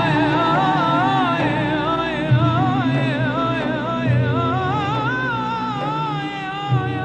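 Film soundtrack music: a wavering, ornamented melody over low held bass notes that change every second or two.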